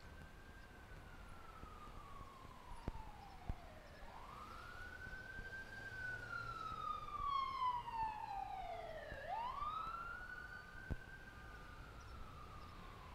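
Emergency vehicle siren on a slow wail, its pitch climbing quickly and then gliding down in long sweeps, two and a half cycles, loudest in the middle.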